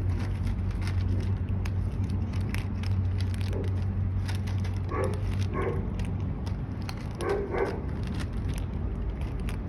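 Kittens eating, with many small crunching clicks. A few short calls come singly and in pairs around the middle and near the end, over a steady low hum.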